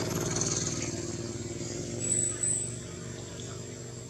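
A motor vehicle engine hums steadily, briefly louder about two seconds in and then dropping away.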